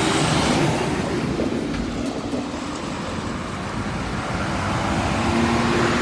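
Road traffic noise: a steady wash of vehicle engine and tyre noise, with a vehicle's engine hum growing louder near the end.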